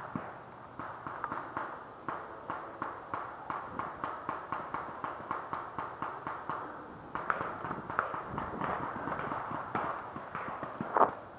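A paintball player's footsteps at a steady jog, about three steps a second, with one sharper, louder knock near the end.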